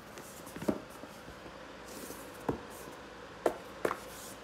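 Hands handling a foam yoga mat: four short scuffs and taps of fingers on the mat's surface against a faint hiss.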